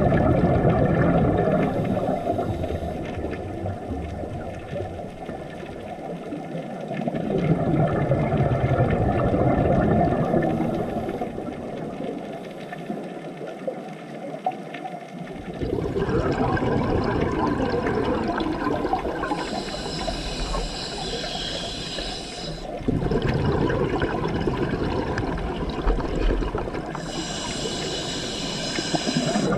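Underwater recording of rushing, churning water. Twice in the second half, a higher sound with several steady tones layered over one another joins in for a few seconds.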